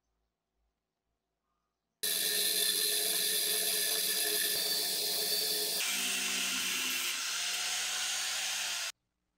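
Angle grinder grinding a metal part that is spinning in a lathe chuck, a steady, loud grinding whine with the lathe running. It starts suddenly about two seconds in, shifts in tone about six seconds in, and cuts off suddenly near the end.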